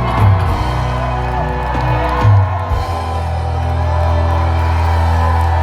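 Stage music with held bass notes and a couple of drum hits, with a crowd cheering and whooping underneath.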